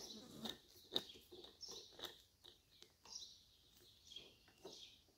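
Faint birds chirping in short, repeated calls, with a few light clicks and taps of parts being handled; the sharpest click comes about a second in.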